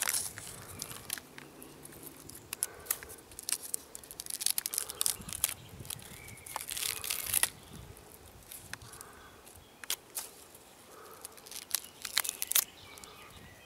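Fingers scratching and picking at the dry, stringy bark of a eucalyptus trunk, giving irregular crackling, tearing scrapes.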